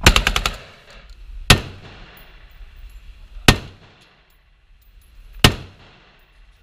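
A short full-auto rifle burst of about six rapid shots, ringing off the walls of an indoor range. Three single gunshots follow, evenly spaced about two seconds apart.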